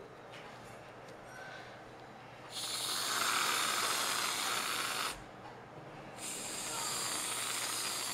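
Aerosol can of whipped cream spraying: two long hissing squirts of about two and a half seconds each, the first starting a couple of seconds in, the second a second later.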